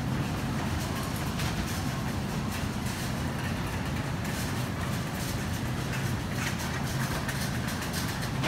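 Supermarket background noise: a steady low hum with faint scattered clicks.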